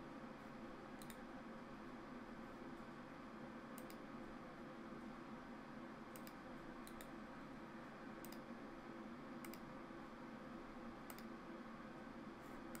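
Computer mouse clicking: single sharp clicks every second or two, faint over a low steady room hum.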